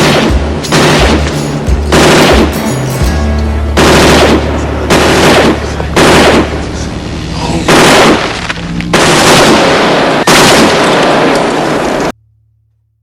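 Machine gun firing in short bursts, about one a second, over a steady low drone. The firing cuts off suddenly near the end.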